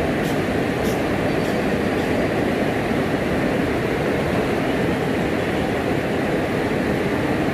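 Steady, even rushing of flowing water, a constant low roar without breaks.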